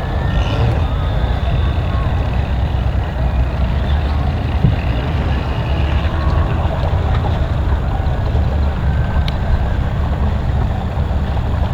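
A vehicle engine running steadily with a low, even drone, with faint voices in the background.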